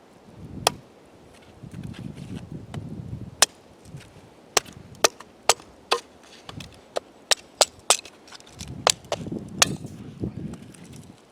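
Wood being chopped for the fire: about a dozen sharp, irregular strikes, closest together in the middle, with low rustling between them.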